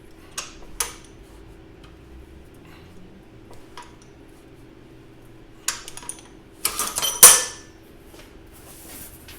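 Metal clanks and clinks from handling steel sheet and tools at the workbench. There are two sharp clinks near the start and a few light ones near the middle, and the loudest ringing clanks come about seven seconds in. A short scraping hiss follows near the end.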